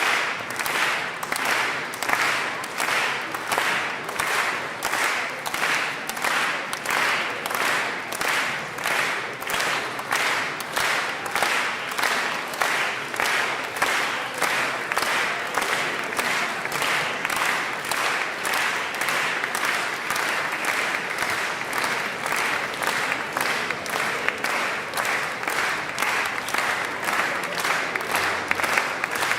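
Concert audience applauding, the clapping falling into rhythmic unison at about two claps a second.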